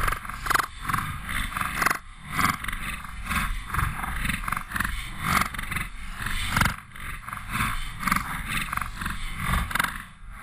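A running dog's heavy breathing and paw strikes in snow, heard very close through a chest-mounted GoPro, in an uneven beat of about two to three a second.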